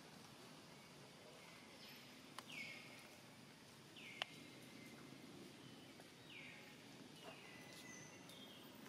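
Faint high-pitched animal calls, each sliding down and then holding briefly, repeating every one to two seconds over a low background hiss, with two short sharp clicks in the middle.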